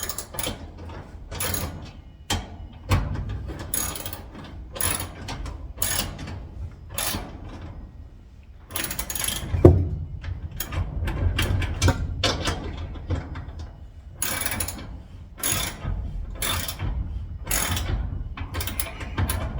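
Metal hardware of a garage door lock being worked with a hand tool: a long run of short ratcheting clicks, roughly one every two-thirds of a second, with a louder knock about halfway through.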